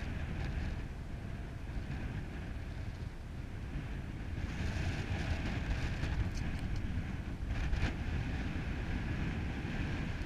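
Wind buffeting the camera's microphone: a steady low rumble, with a hiss that strengthens about halfway through and a brief knock near the end.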